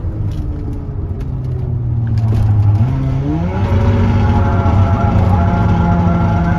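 Hyundai Coupe's engine pulling under load, a steady drone whose pitch climbs quickly about three seconds in and then holds higher and a little louder.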